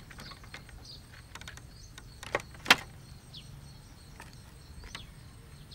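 Cycle rickshaw pulling up and stopping, making scattered light clicks and knocks, with one sharper knock about two and a half seconds in. Faint bird chirps sound now and then.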